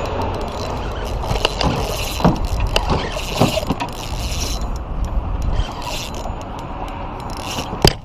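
Spinning reel cranked against a hooked fish on a bent rod: gear whirring and scraping with a few sharp clicks, the loudest near the end, over a low steady rumble.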